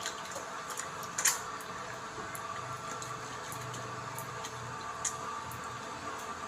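Soft squishing of facial soap being lathered and rubbed over the face by hand, with a few small clicks, over a steady bathroom hum.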